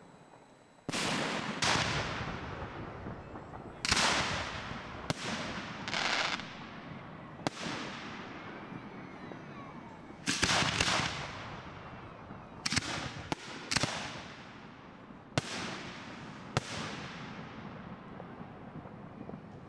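Aerial fireworks shells booming at irregular intervals, about a dozen sharp bangs a second or two apart, each followed by a long rolling echo.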